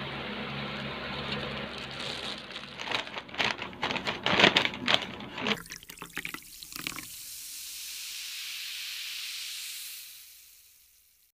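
Paper takeout bag and its plastic wrapping rustling and crinkling in dense, irregular crackles over a steady low hum. Then a smooth airy whoosh swells and fades away.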